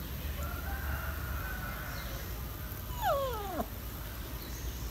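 A single animal whine, falling steeply in pitch over about half a second, about three seconds in.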